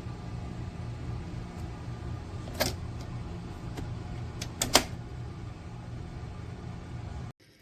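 A steady low hum with a few sharp clicks: one about two and a half seconds in and a quick pair near five seconds. The sound cuts off abruptly just before the end.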